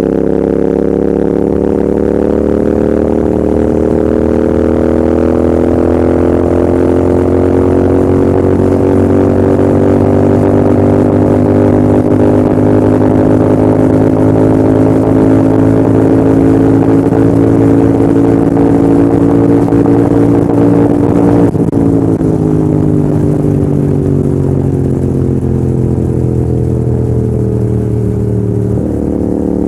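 Royal Enfield Continental GT650's 648 cc parallel-twin engine and exhaust under sustained high-speed throttle, the engine note climbing slowly, with wind and road noise. About two-thirds of the way through a sharp click is heard and the note then falls steadily as the bike slows off the throttle, stepping down once more near the end.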